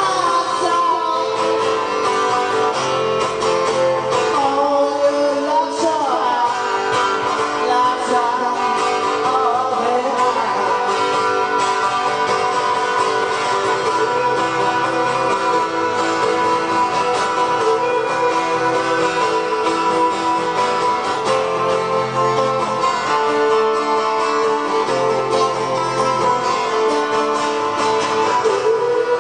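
Live acoustic rock song: an acoustic guitar played continuously, with a voice singing over it at times.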